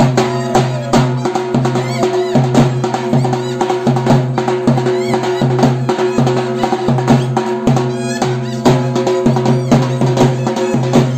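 Live kathputli puppet-show music: a dholak drum played in a quick, steady rhythm over a held drone.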